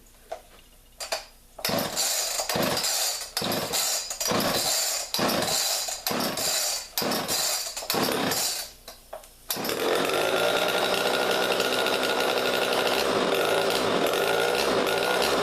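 A Homelite chainsaw being pull-started: about a dozen quick yanks on the recoil starter cord, then the two-stroke engine catches a little after nine seconds and runs steadily.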